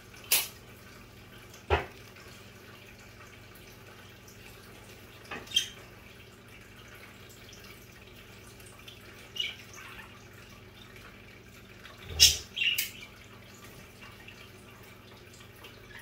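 Budgerigars bathing in a dish of wet greens: a handful of short, sharp splashes and wing flutters a few seconds apart, the loudest a double one about twelve seconds in, over a faint steady low hum.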